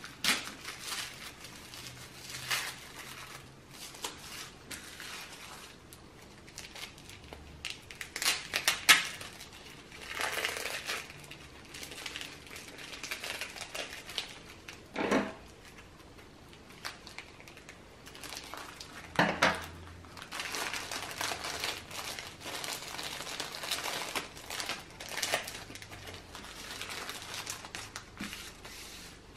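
Paper and clear plastic packaging being unwrapped by hand: irregular crinkling and rustling in bursts with short pauses, and a few sharper crackles, the loudest about nine seconds in.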